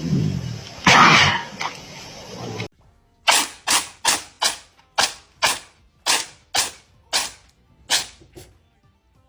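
Animal sneezing: one loud sneeze about a second in, then a rapid run of about a dozen short, sharp sneezes, roughly two a second.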